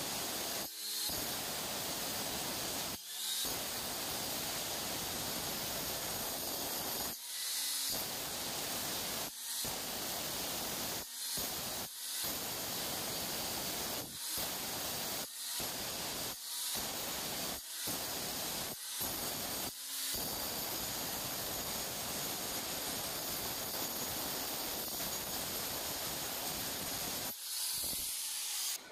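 Handheld angle grinder grinding the granite edge of a kitchen-sink cutout, its disc running steadily against the stone, broken by about a dozen brief gaps. The edge is being trimmed square so the sink can sit inside the opening.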